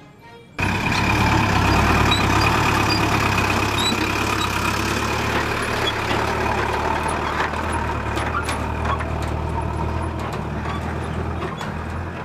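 Truck engine running as a laden tipper truck drives off along a dirt track, cutting in suddenly about half a second in and slowly getting quieter. A few faint bird chirps are heard over it.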